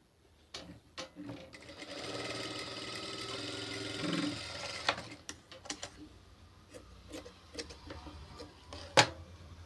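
Sewing machine stitching fabric in a steady run of about three seconds that stops abruptly. Clicks and knocks come before and after the run, with one sharp click near the end the loudest.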